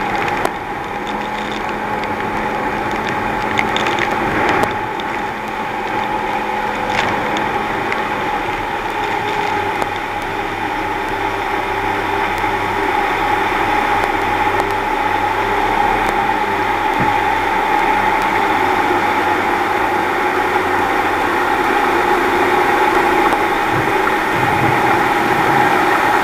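Thundercat racing boat's outboard motor running steadily at speed, with water and wind rushing past the hull, slowly getting a little louder.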